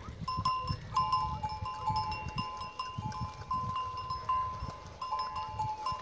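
Bells on a pair of plough bulls ringing as the animals walk: a steady, uneven chain of clear notes at two close pitches, with soft low thumps underneath.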